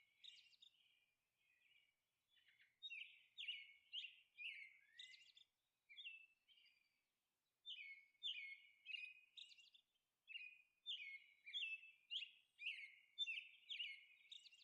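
Faint birdsong: small birds chirping in quick, repeated high notes with short pauses.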